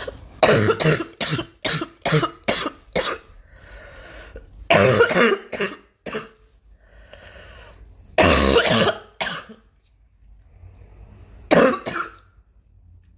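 A girl coughing: a quick run of about six short coughs in the first three seconds, then three longer, heavier coughs a few seconds apart.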